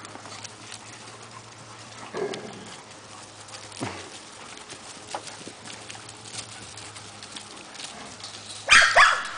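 A pack of dogs playing, their paws scuffling over dry leaves and stones. One dog gives a short bark about two seconds in and a louder bark near the end.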